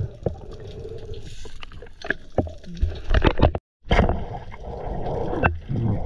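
Underwater sound of a diver handling a speared fish and gear: muffled water swishing with a run of sharp clicks and knocks. It cuts out briefly about halfway, then picks up again.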